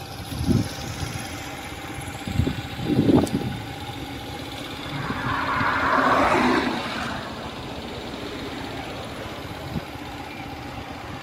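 Motorcycle riding along a highway at speed: steady engine, road and wind noise, with a few low gusts of wind on the microphone in the first few seconds. Just past the middle, a car passes close alongside, its sound swelling and fading over about two seconds.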